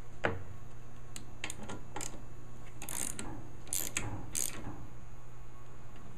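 Ratchet wrench with an extension and 13/16 spark plug socket tightening a new spark plug: several short bursts of pawl clicking as the handle is swung back and forth, with a sharp knock near the start.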